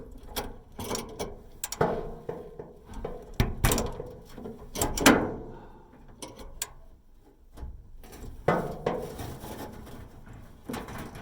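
Irregular clanks, clicks and scrapes from hands working inside a Samsung dryer cabinet, handling the belt idler pulley and its tension spring. The loudest knock comes about five seconds in, with a short lull before a few more knocks near the end.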